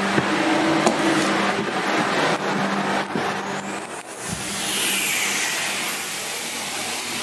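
Workshop dust extractor fan running with a steady rushing noise. A high whine rises about three seconds in and then holds steady; one dull thump is heard about a second later.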